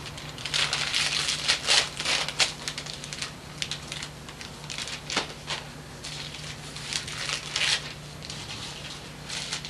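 Wrapping paper crinkling, rustling and tearing as presents are unwrapped, in irregular handfuls that are busiest in the first couple of seconds and again near the end.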